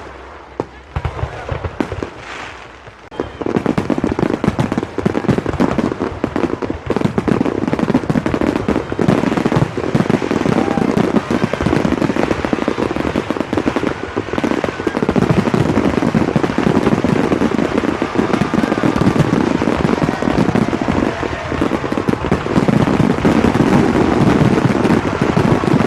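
Fireworks going off. A few scattered bangs are followed, about three and a half seconds in, by a dense, continuous barrage of bangs and crackle that grows a little louder near the end.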